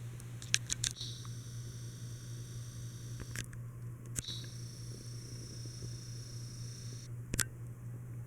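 Encon Casanova ceiling fan running with a steady low hum. Sharp switch clicks come in a quick cluster just under a second in, then around three and a half and four seconds, and once more near seven and a half seconds. A faint high whine starts, changes and cuts off with the clicks.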